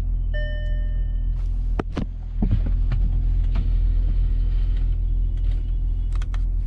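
Audi Q7 engine idling, heard from inside the cabin as a steady low hum. About half a second in, a short electronic chime sounds for about a second. Sharp clicks follow around two seconds in and again near the end.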